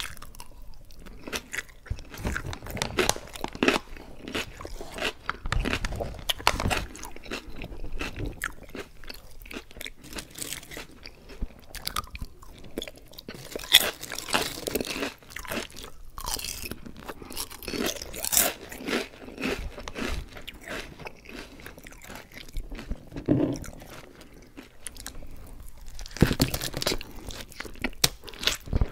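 Close-miked chewing and crunching of Lay's Classic potato chips, with irregular crisp crackles as each mouthful is bitten and ground down.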